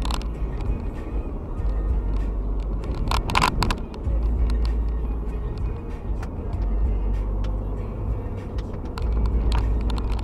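A car driving at motorway speed, heard inside the cabin: a steady deep rumble of engine and tyre noise, with scattered light clicks and a louder burst about three seconds in.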